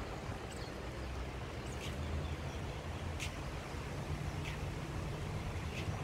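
Outdoor ambience: a steady low rumble with a few faint, short high chirps scattered through it.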